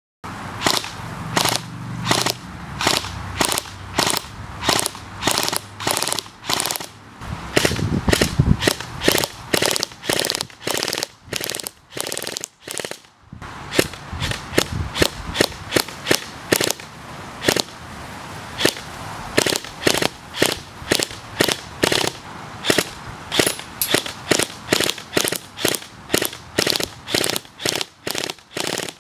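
KWA SR10 battery-powered electric airsoft rifle firing single shots in quick succession, about two or three a second, with a brief pause about twelve seconds in.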